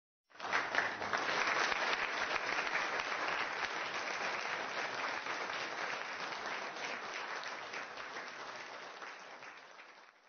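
A crowd applauding, a dense patter of many hands clapping that starts suddenly and slowly fades away over the last few seconds.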